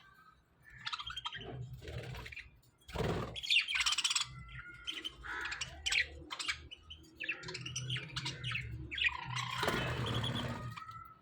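A small colony of budgerigars chirping and chattering, many short calls overlapping in irregular clusters, with a brief low rumble about three seconds in.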